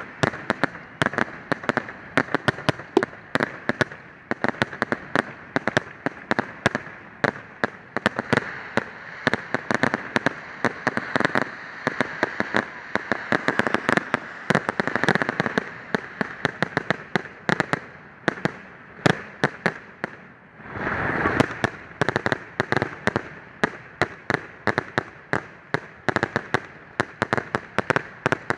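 Fireworks going off: a dense, irregular string of sharp pops and bangs, several a second, with a brief lull and then a louder rushing swell about two-thirds of the way through.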